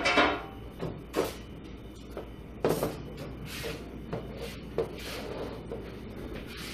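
Collapsible stainless steel wire rack being unfolded and set up, its hinged frames clanking and rattling against each other and the floor. The loudest knocks come at the start, about a second in and near three seconds in, followed by lighter taps.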